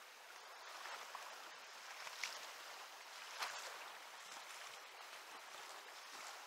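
River current running steadily over a riffle, with two short, sharp splashes about two and three and a half seconds in from a hooked trout thrashing at the surface.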